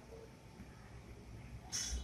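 Quiet handling sounds of hands pressing and shaping soft kachori dough, with two brief hissy rustles near the end.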